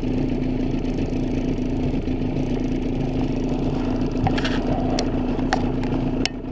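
Outboard motor running steadily at trolling speed, a constant low hum. A few sharp clicks sound over it in the last two seconds as a fish is reeled in and lifted aboard.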